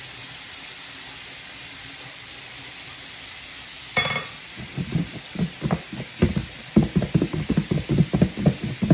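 Battered redfish frying in oil in a skillet, a steady sizzle. About four seconds in there is a sharp click. After that comes a run of rapid, loud knocks and rubbing as the plastic tub beside the microphone is handled.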